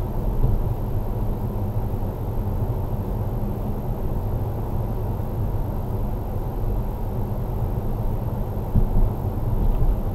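Steady low rumble of engine and tyre noise inside a moving car, as picked up by a windscreen dashcam, with a brief louder bump about nine seconds in.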